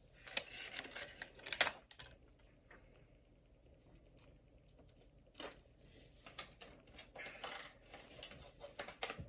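Small handling sounds of phone repair work: light clicks and scratching of tweezers and adhesive on the phone, in two spells with a quiet gap in the middle.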